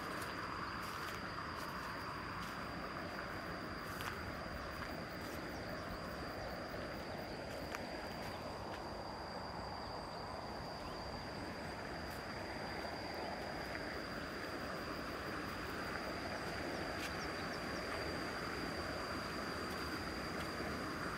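A steady high-pitched insect drone, one unbroken tone, over a constant rushing background noise, with a few faint clicks in the first few seconds.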